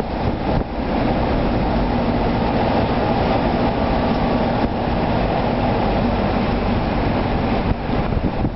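Steady engine and road noise of a moving shuttle bus, heard from inside its cabin.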